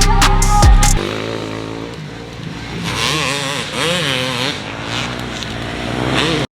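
Motocross bikes riding a dirt track, their engines revving up and falling back over and over. Background music ends about a second in.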